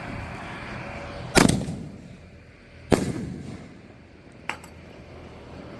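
Three booms from a 7-inch canister shell firework: the loudest about a second and a half in with a long rumbling tail, a second one about a second and a half later, and a smaller, sharper pop a moment after that.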